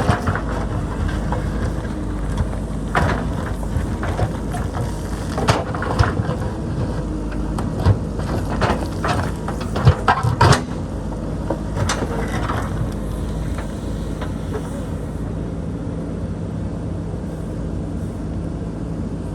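JCB backhoe loader's diesel engine running steadily under load, with repeated sharp knocks and clanks of the steel bucket against rock and boulders for the first dozen seconds or so; after that only the steady engine is heard.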